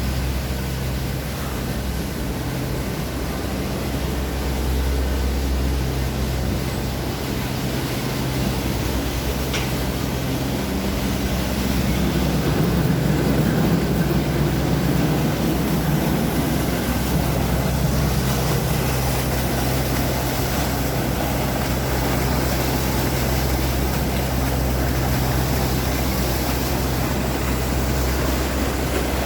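Boat engine running steadily with the rush of water and wind. It swells louder for a few seconds about twelve seconds in.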